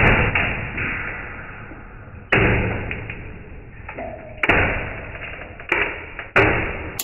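A machined white plastic turner's cube giving way under a hydraulic press: about five sudden cracks, the first right away and the rest at irregular intervals, each dying away over a second or two above a steady low rumble.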